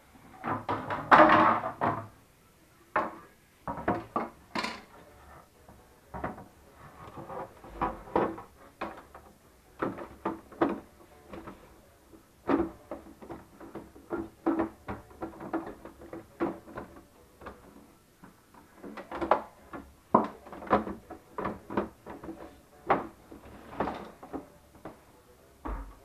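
Plastic housing panels of a Jura E8 coffee machine being handled and fitted: irregular clicks, knocks and scrapes of hard plastic parts, with a louder stretch of scraping in the first two seconds.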